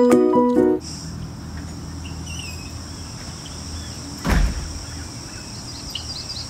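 Ukulele music stops within the first second, leaving crickets chirping in a steady high drone over a low rumble. A single thump comes about four seconds in.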